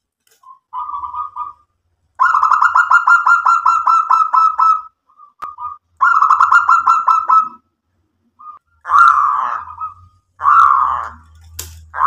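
Zebra dove (local perkutut) cooing: a short call, then two long runs of rapid staccato notes, followed by shorter, rougher coos in the second half.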